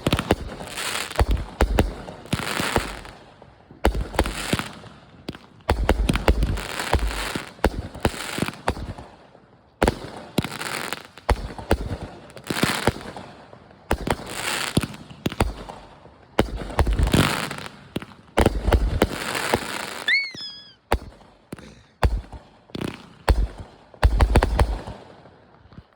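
Two 200-gram 'Texas Rattlesnake' consumer firework cakes firing shot after shot, each a low thump followed by a burst that hisses and crackles for about a second. From about twenty seconds in, the shots give way to a string of short, sharp, separate cracks.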